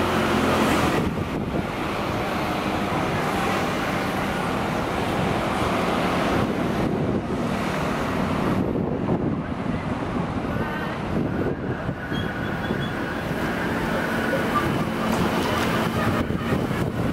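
Steady outdoor traffic noise, with wind buffeting the microphone.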